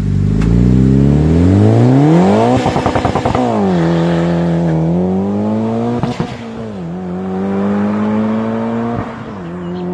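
Sports car engine at full throttle, its pitch climbing steeply through the revs and dropping sharply with each upshift, about three shifts in all.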